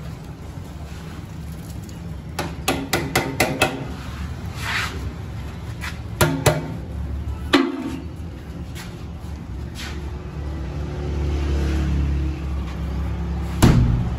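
Metal clanking from a tin can and an aluminium pot: a quick run of about seven ringing taps, then a few single knocks and one loud knock near the end, over a steady low rumble.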